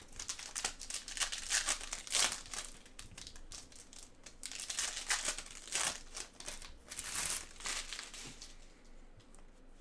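Trading-card pack wrappers crinkling and rustling in gloved hands as packs are opened and cards pulled out, in a dense run of irregular crackles that thins out near the end.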